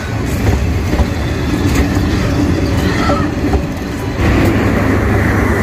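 Bangladesh Railway intercity passenger carriages rolling past the platform as the train pulls out of the station: a steady low rumble with a few sharp clicks from the wheels. It grows louder about four seconds in.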